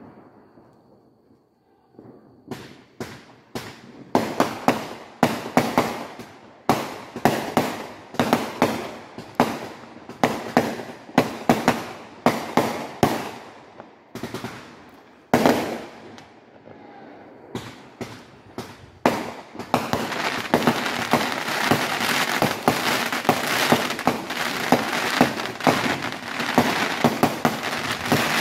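Neighbourhood consumer fireworks going off: a rapid run of sharp bangs, several a second, starting about two seconds in. From about twenty seconds in, the bangs give way to a dense crackling as many small pops run together.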